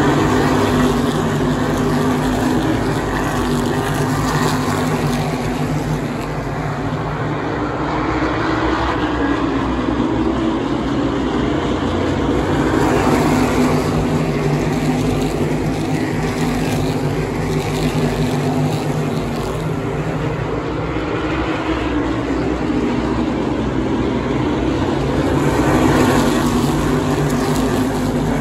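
A pack of asphalt Modified race cars with V8 engines running at racing speed around a short oval. The engines swell louder as the field comes past, about every thirteen seconds.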